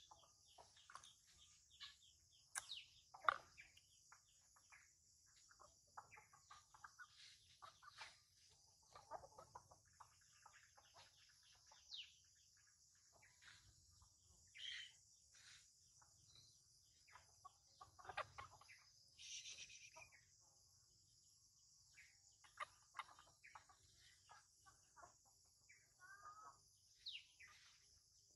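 Faint chickens clucking over a steady high insect drone, with scattered soft clicks and crackles close by.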